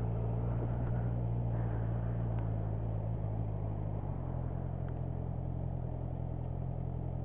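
Motorcycle engine running at road speed, heard from the rider's seat, under steady wind and road noise; the engine note drops about four seconds in.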